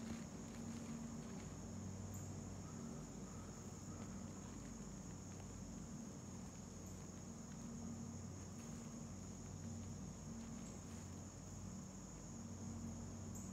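A steady, high-pitched chorus of insects in summer woods, with a low steady hum underneath.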